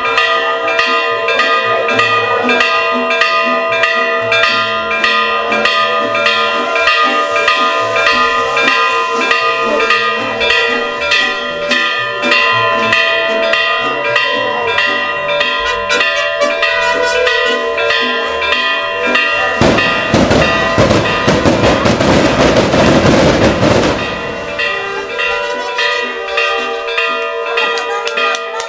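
Church bells pealing, struck rapidly and continuously so that several ringing tones overlap. About two-thirds of the way in, a dense crackling burst covers the bells for about four seconds.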